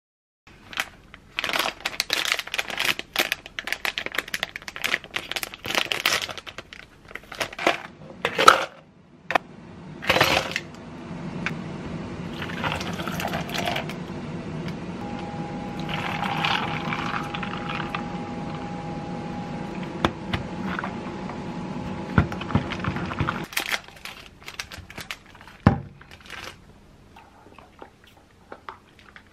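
Ice cubes clinking and clattering into a plastic cup for iced coffee, in many quick knocks. This gives way to a steady sound lasting about twelve seconds, then a few more light knocks.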